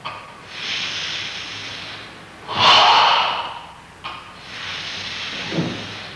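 Controlled Sanchin kata breathing of a Goju-ryu karateka: a long steady hiss of breath, then a loud forced breath about two and a half seconds in, then another long steady hiss from about four seconds in.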